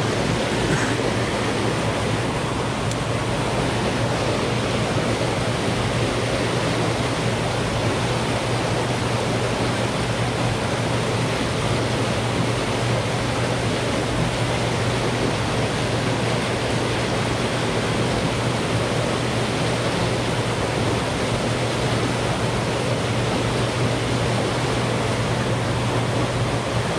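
Turbulent tailwater rushing along a concrete dam wall, churned up by the discharge of running hydroelectric generators: a steady, even rush with a low hum underneath.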